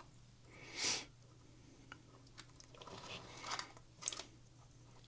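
Faint handling noises of small parts being worked by hand: a soft rustle about a second in, then a few light clicks and scrapes, over a faint steady hum.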